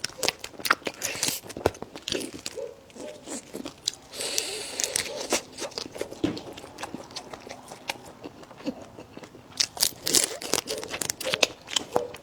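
A person biting and chewing crunchy fish and shrimp, with dense, irregular crunches and wet mouth sounds.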